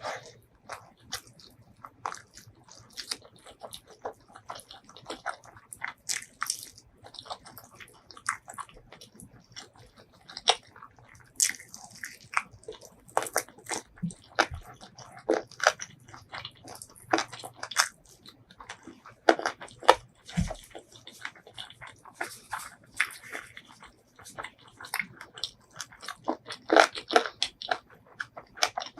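Close-miked eating: a person biting and chewing with crisp crunches and wet mouth clicks, in irregular bursts.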